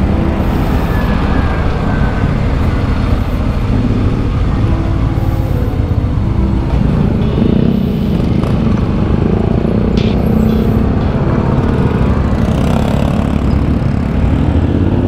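A motorcycle under way, its engine and road noise making a steady, dense low rumble.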